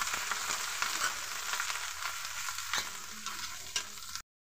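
Onion-garlic paste and ground spices sizzling in hot oil in an iron kadhai, stirred with a metal spatula that ticks and scrapes against the pan. The sound cuts off suddenly near the end.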